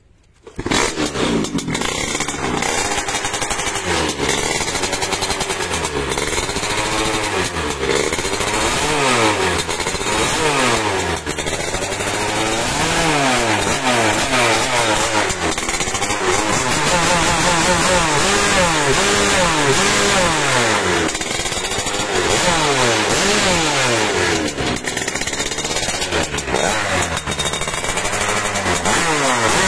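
Vespa V80's two-stroke engine, built with a Kawasaki Ninja cylinder block and an ABRT expansion-chamber exhaust, revved hard again and again, its pitch climbing and then dropping every couple of seconds.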